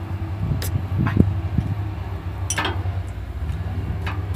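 An engine idling with a steady low hum, with a few brief knocks and clinks over it.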